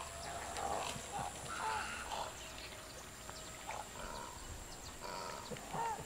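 Wading birds calling in a flock: many short harsh calls and a few curving, arched notes overlap continually, with a steady high thin tone behind them.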